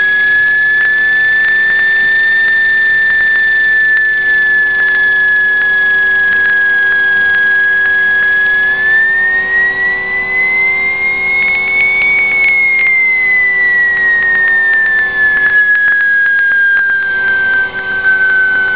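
A small coaxial speaker driven straight from the generator coil of a homemade pulse motor sounds a loud, high, continuous whistling tone whose pitch follows the generator's output frequency. The pitch wanders, rises a little past the middle, then falls back lower near the end, with a few faint clicks.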